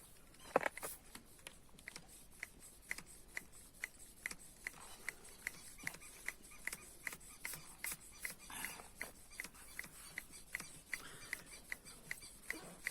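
Small hand pump being worked to inflate a punctured tyre, giving a short sharp tick on each stroke, about two a second.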